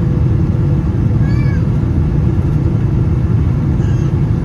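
Steady low cabin roar of a Boeing 777-200 on approach, heard from a window seat behind the wing: engine and airflow noise. A little over a second in, a brief high cry rises and falls above the roar.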